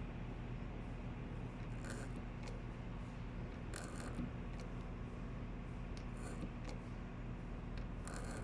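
Steady low electric machine hum, with a few short scraping sounds every two seconds or so.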